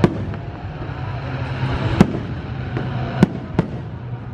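Aerial fireworks shells bursting in sharp bangs: one near the start, one about two seconds in, and two in quick succession a little after three seconds, over a steady background rumble.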